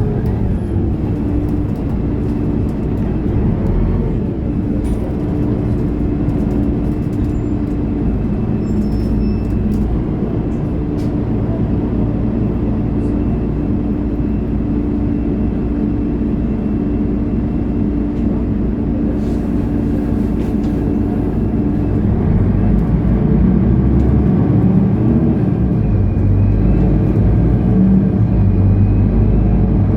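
Mercedes-Benz O530 Citaro Facelift Ü city bus's diesel engine running while the bus drives, with a steady engine tone and occasional small rattles and clicks. About two-thirds of the way through the engine grows louder and its pitch starts to shift.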